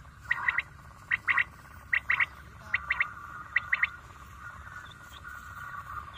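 Quail calls played through a loudspeaker lure to draw birds into the nets: five quick three-note phrases, about one a second, that stop about four seconds in, over a faint steady high hum.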